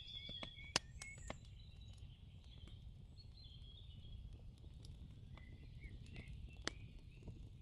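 Faint bird chirping over a low rumbling background, with a few sharp clicks, the loudest about a second in and near the end.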